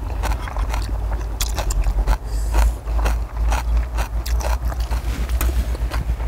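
Metal spoons and forks scraping and clicking against a cast-iron pot-lid griddle as food is scooped off it, with close-up chewing and a steady low rumble underneath.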